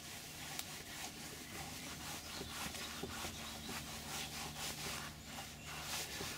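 Microfibre cloth rubbing over a leather car door panel, in repeated back-and-forth wiping strokes.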